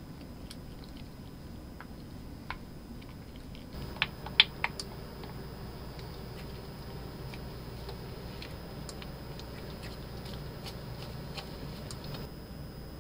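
Thick gochujang sauce being stirred with a wooden spoon in a glass bowl, with light clicks of the spoon. About four seconds in come a few sharp clinks of utensil on glass and pan. The sauce is then spread around a nonstick frying pan with a spatula, making soft sticky squelches and scattered ticks over a low steady hum.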